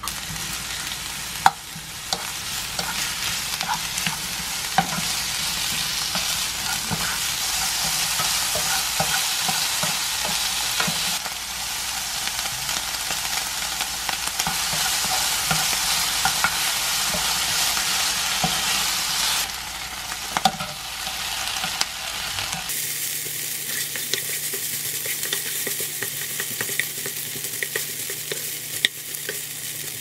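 Shrimp, ham and diced bell pepper sizzling with minced garlic in a non-stick frying pan, stirred with a spatula that scrapes and taps on the pan. The sizzle eases a little about two-thirds of the way through.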